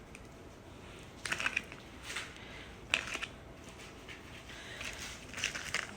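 Diced onions being scattered by hand onto nachos: a few short, light rustles and crackles, spread out over several seconds.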